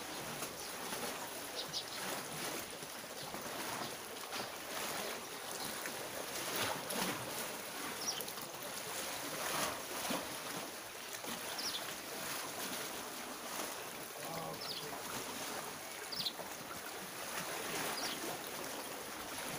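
Steady wash of sea waves and wind, with a few short high chirps now and then.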